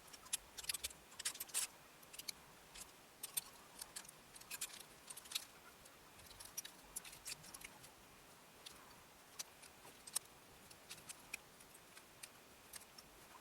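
Plastic LEGO bricks clicking and clattering as they are handled and snapped together: many sharp, irregular clicks, sometimes in quick clusters.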